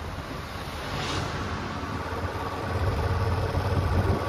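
A road vehicle on the move: a low engine and road rumble with a noisy rush over it, growing louder about three seconds in.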